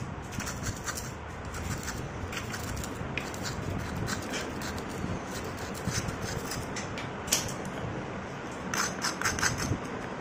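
Metal knife blade scraping over and breaking up a dried, cracked crust of clay in a terracotta bowl: a scratchy, gritty crunch with many small crackles and clicks, and a quick run of crisp crackles near the end.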